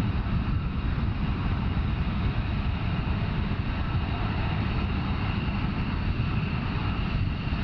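F-35A Lightning II's single F135 turbofan jet engine running loud and steady: a dense rumbling jet noise with a thin high whine.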